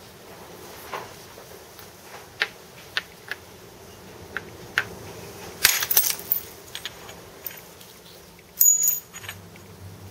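Hammerstone striking a Fort Hood flint core to knock off spalls: sharp, separate stone-on-stone clicks, single strikes at first, then two louder clusters of quick hits around the middle and near the end.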